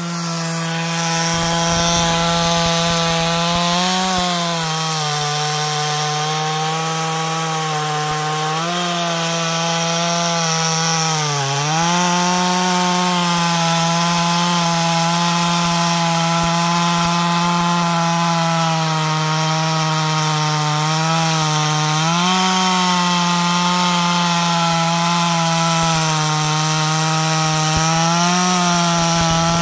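Ported Solo 636 two-stroke chainsaw with 3/8 chain running at high revs while cutting through a log. Its pitch holds steady but dips briefly several times as the chain bites into the wood.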